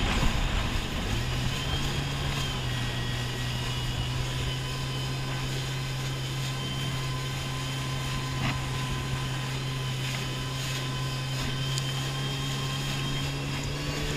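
Jet ski engine easing off, its note dropping, then holding a steady low cruising speed from about a second in, with water washing under the hull.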